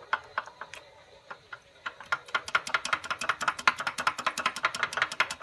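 Removed Honda CR-V oil pump being rocked back and forth by hand, its loose parts clicking metal on metal from the play. There are a few scattered clicks, then rapid clicking at about ten a second from about two seconds in. The play comes from spun bearing shells in the oil pump.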